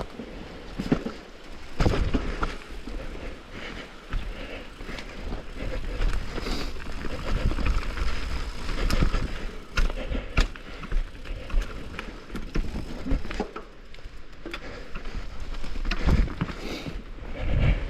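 Downhill mountain bike running over a rough dirt trail: continuous tyre and trail noise with irregular knocks and rattles as the bike hits bumps, and several heavier thumps.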